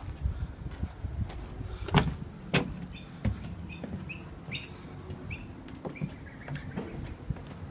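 Footsteps on timber decking boards, with sharp knocks about two seconds in, over low rumbling handling noise. A few short high chirps come in the middle.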